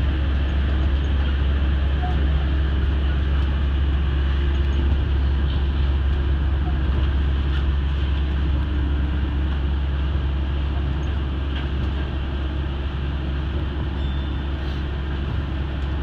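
Steady cabin noise inside a Yui Rail monorail car, heard from the front of the train: an even low rumble with a hiss above it, easing slightly in the last few seconds.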